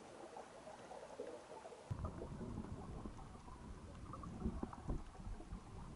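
Underwater sound heard through a camera housing: a faint crackle, then from about two seconds in a low rumble of water moving against the camera, with irregular thuds, two of them loudest near the end.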